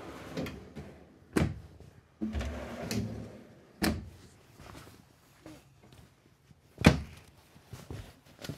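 Wooden cabinet drawers on metal slides being pulled open and pushed shut, with a sharp knock each time one closes. There are three loud knocks, the loudest about seven seconds in, with softer sliding and rustling between them.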